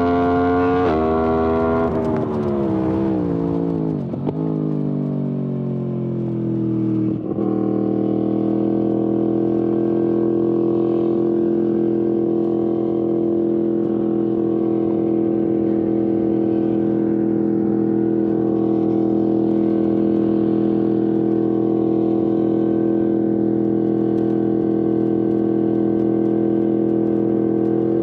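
Yamaha MT-10 SP's crossplane inline-four through an Akrapovic exhaust: the engine note climbs briefly, then falls away over a few seconds as it slows, gives a short blip about seven seconds in, and then holds one steady note for the rest.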